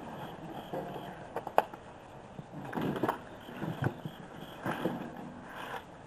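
Hands digging and rummaging through loose garden soil, with short, irregular scrapes and rustles.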